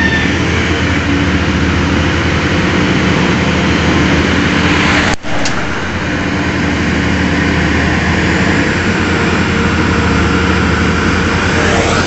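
Heavy construction machinery running steadily at a worksite: the diesel engines of a Bauer rotary piling rig and a Doosan wheeled excavator, mixed with passing road traffic. The sound drops out sharply for an instant about five seconds in, then carries on unchanged.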